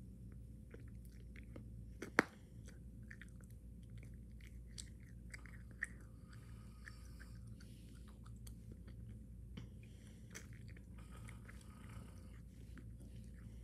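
Bubblegum being chewed close to the microphone: many small wet clicks and smacks of the mouth, with one sharp pop about two seconds in as a gum bubble bursts.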